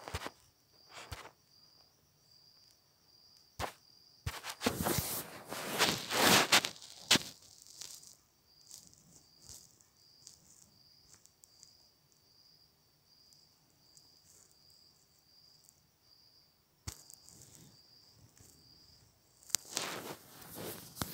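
A cricket chirping steadily, a short high chirp about twice a second. Bursts of rustling or handling noise come about five seconds in and again near the end, with a few sharp clicks.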